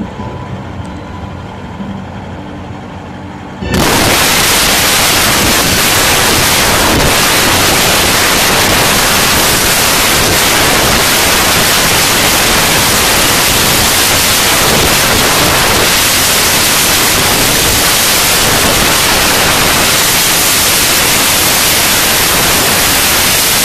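A few seconds of steady tones, then a loud, even hiss like static that starts abruptly about four seconds in and holds unchanged.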